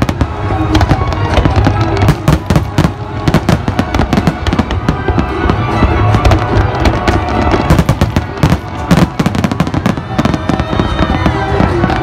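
Fireworks display: aerial shells bursting in quick succession, with dense bangs and crackling and no real pause.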